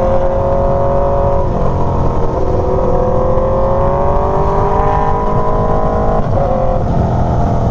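Aprilia Tuono V4's V4 engine through an aftermarket SC GP exhaust, pulling under throttle on the move. Its pitch climbs steadily and drops twice, about one and a half seconds in and again near the end, as it shifts up, over a low rumble of wind.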